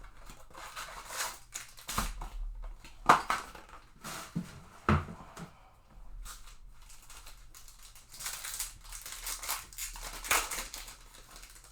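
Trading-card blaster box and packs being opened by hand: irregular rustling, crinkling and tearing of wrapping and cardboard, with a few sharp snaps, the loudest about three and five seconds in.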